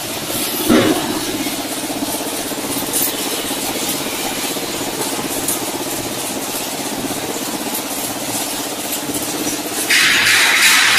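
Frying and cooling conveyor line for fried beans running: a steady machine hum with a held low tone and a light clatter of many small clicks. There is one knock about a second in, and a loud hiss comes in near the end.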